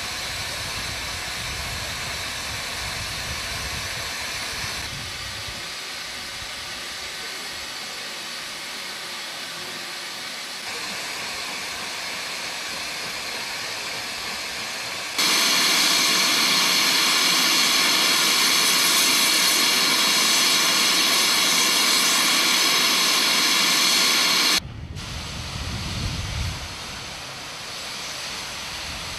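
Steam hissing from the standing BR Standard Class 7 Pacific steam locomotive No. 70000 'Britannia'. About fifteen seconds in, a much louder, higher hiss starts abruptly, holds steady for about nine seconds, then stops suddenly.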